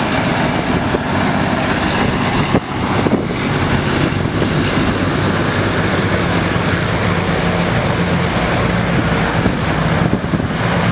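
Hovercraft running: a loud, steady rush of engine and propeller noise, with a low steady hum coming through more strongly in the second half.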